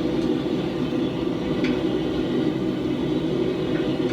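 Steady, even rumble of a running forge, with a faint click or two about halfway through.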